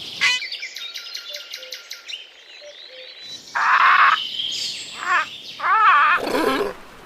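Birds calling: a run of short, quick chirps, then from about halfway several louder squawks and wavering calls.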